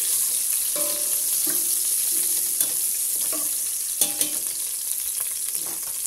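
Chopped garlic and onion sizzling in hot oil in a stainless steel pot, a steady frying hiss, while a metal spoon stirs and scrapes them. The spoon clinks sharply against the pot about two and a half seconds in and again about four seconds in.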